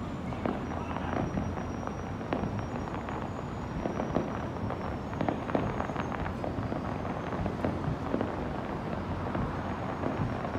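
Distant fireworks popping and crackling in quick, irregular succession over a steady low rumble.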